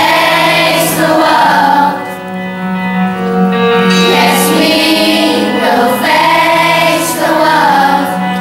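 Children's choir singing a pop song in unison over an instrumental backing track with held bass notes.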